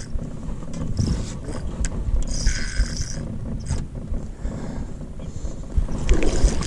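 Wind buffeting the microphone and handling rumble, with scattered knocks and a short higher buzz about two and a half seconds in.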